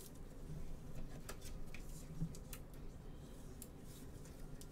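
Faint scattered clicks and light rubbing as trading cards and a clear plastic card holder are handled.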